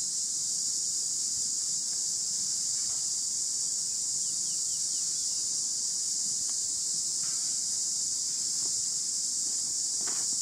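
Steady, high-pitched drone of an insect chorus.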